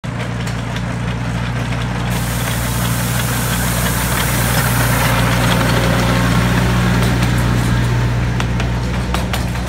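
Miniature train locomotive's engine running with a steady low hum as the locomotive and its passenger cars go by. A hiss comes in for a few seconds in the middle, and there are sharp clicks near the end.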